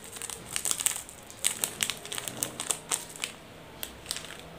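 Small plastic seasoning sachet crinkling as it is squeezed and shaken over dry instant noodles. Quick, irregular crackles come thickly at first and thin out to a last few after about three seconds.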